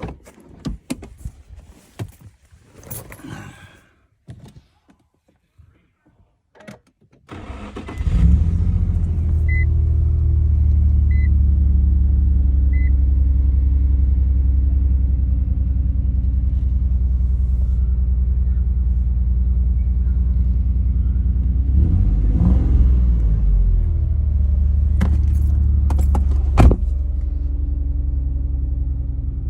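Keys jingling and clicks, then the V6 engine of a 2007 Infiniti cranks and starts about seven seconds in and settles into a steady idle, running smoothly with its new spark plugs and coils fitted. A dashboard chime beeps three times soon after it starts.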